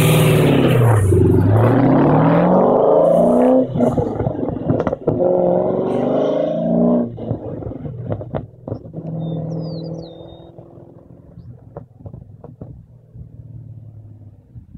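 Pontiac GTO's V8 through a custom 4-inch exhaust, accelerating hard away through the gears: the revs climb and drop at each shift over the first seven seconds. It then settles and fades as the car pulls off into the distance.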